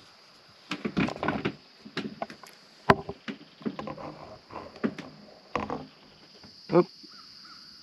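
A steady high insect trill, typical of crickets, with irregular knocks and rustles over it; the knocks are the loudest sounds, one about three seconds in and another near the end.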